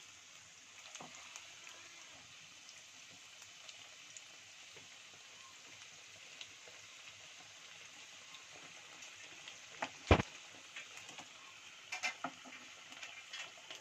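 Sabudana vadas deep-frying in hot oil: a steady sizzle. One sharp knock comes about ten seconds in, with a few lighter clicks near the end.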